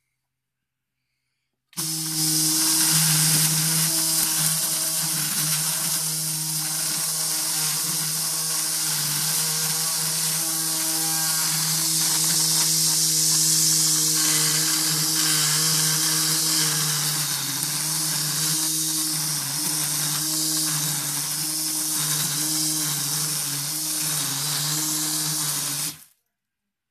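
Homemade string trimmer with an electric motor at the cutting head, starting about two seconds in and running steadily with a low hum and a loud hiss of nylon line cutting grass, then cutting off suddenly near the end.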